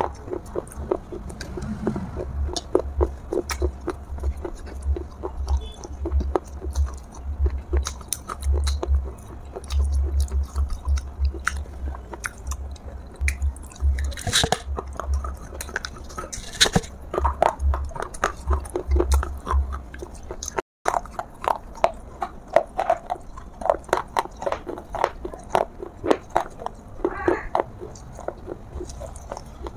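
Bites and chewing of a water-soaked terracotta clay pot (matka): dense, crisp crunches follow one another throughout, with a momentary dropout about two-thirds of the way through.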